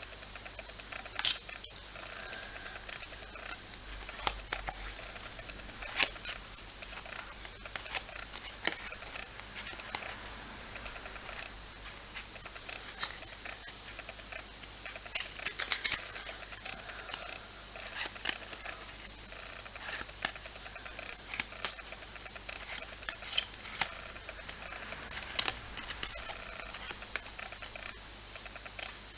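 Match Attax trading cards and their foil packs handled by hand: irregular rustling, crinkling and small clicks as packs are opened and the cards are flicked through.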